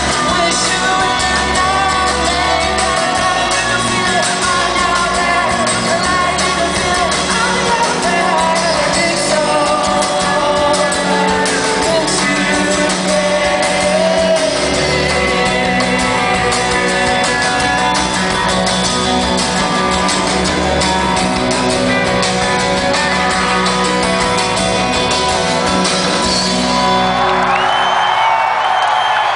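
Live rock band playing loudly, with guitars and a singer. About 27 seconds in the song ends and the crowd cheers and applauds.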